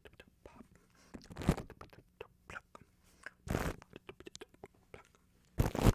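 Close-miked ASMR wet mouth sounds: scattered quick tongue and lip clicks, with three louder scratching strokes on the microphone, about a second and a half in, at three and a half seconds, and near the end.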